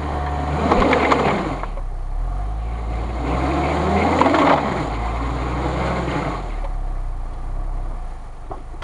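Nissan X-Trail's engine revving hard in two surges while its wheels spin in snow, then easing back. The car is hung up diagonally and the wheels are losing traction.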